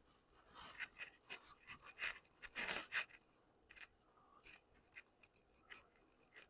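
Near silence, broken by a few faint short clicks and rustling scrapes between about one and three seconds in.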